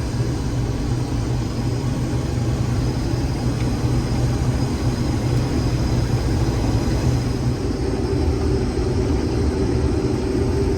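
Rotary combine harvester running steadily while cutting soybeans, with its engine and threshing rotor droning. The rotor is set in the high range at about 650 rpm. A steady whine grows stronger in the second half.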